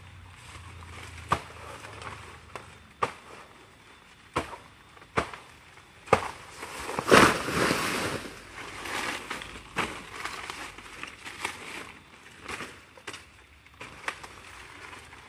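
Machete chopping at a banana plant: sharp single strikes a second or so apart, with dry banana leaves rustling and crackling as they are hacked and pulled, loudest about halfway through.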